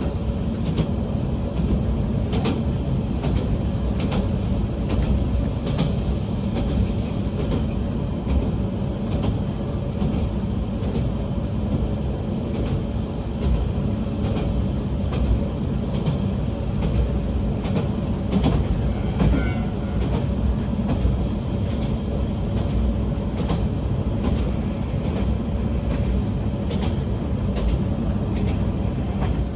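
Diesel railcar running along the line: a steady low rumble with irregular wheel clicks over the rail joints.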